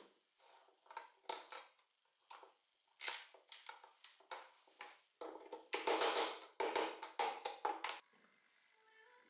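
Oak frame sticks of a shoji lamp handled and pushed together at their glued joints on a workbench: a run of light wooden clicks and knocks, then, about five seconds in, a louder dense stretch of wood knocking and scraping as the joints are pressed home. It stops suddenly near the end, and faint music follows.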